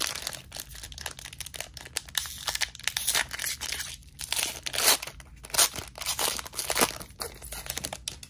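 A Disney Lorcana foil booster pack being torn open by hand, its wrapper crinkling and ripping in an irregular run of crackles, with louder rips in the second half.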